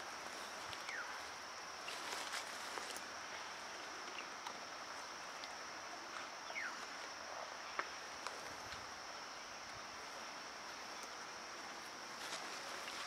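Steady high-pitched drone of insects calling in forest, over a continuous outdoor hiss. Scattered light clicks and snaps, and a few short falling chirps, are heard through it.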